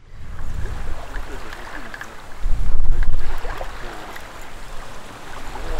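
Wind rumbling on the microphone outdoors by the water, loudest about two and a half seconds in, over a steady hiss.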